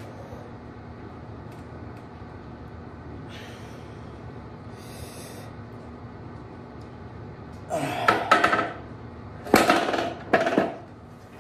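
Plate-loaded EZ curl bar set down with loud metal clanks and rattling plates, in a few sudden clatters near the end, over a steady low hum.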